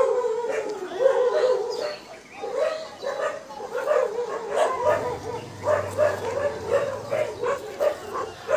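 Animal calls repeating one after another in short pitched yelps, opening with a longer call that falls in pitch. A low steady hum joins about halfway through.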